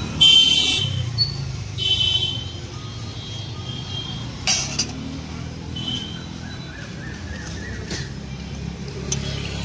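Roadside traffic: a steady low engine rumble with short, high-pitched horn beeps near the start, about two seconds in and about six seconds in, plus a couple of sharp clicks.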